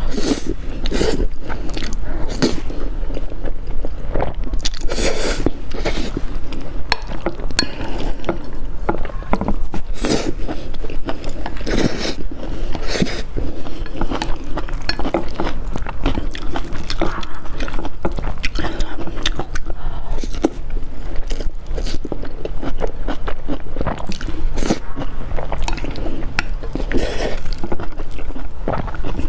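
Close-miked eating: a steady run of bites, wet chewing and lip-smacking, with many short clicks and smacks throughout.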